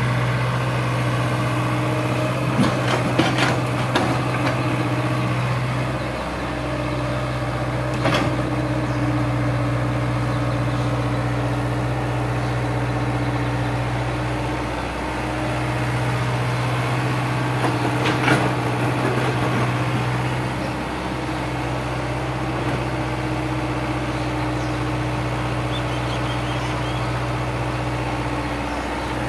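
Hyundai mini crawler excavator's diesel engine running steadily as it digs and loads, its note dipping briefly now and then, with a few sharp clanks and knocks from the bucket and soil, a cluster early on and single ones about a third and two-thirds of the way through.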